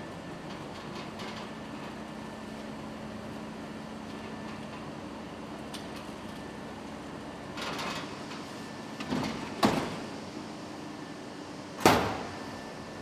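Steady machinery hum with a constant low tone, broken by a short rustle, two knocks, and then a louder sharp clank near the end, like a machine door or cover being shut.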